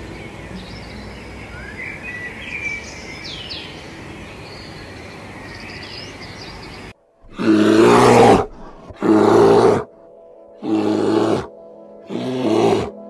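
Faint outdoor ambience with a few short bird chirps, then, after a brief cut about seven seconds in, an animal calling loudly in a series of drawn-out pitched calls about a second and a half apart.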